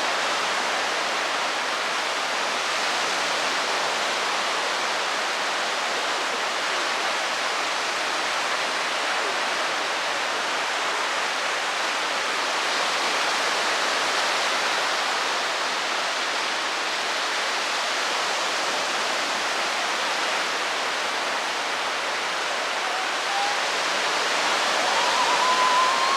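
Steady, unbroken rushing noise, with a few faint rising tones just before the end.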